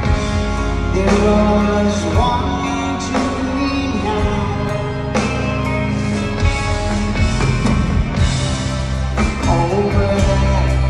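Live rock band playing, with a man singing over keyboards, guitar and drums.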